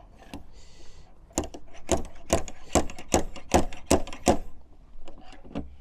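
A run of about nine sharp, evenly spaced clicks or knocks, roughly two to three a second, starting a little over a second in, after a brief hiss.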